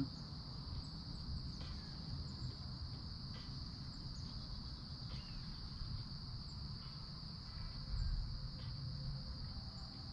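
Steady high-pitched insect trill over a low rumble, with a dull bump about eight seconds in.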